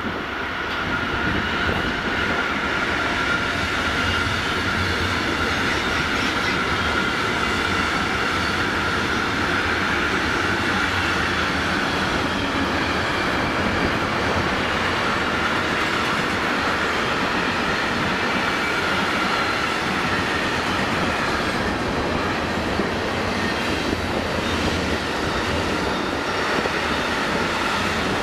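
Long freight train of open wagons rolling past, its wheels running steadily on the rails, with a high squeal that carries on over the first two-thirds and then fades.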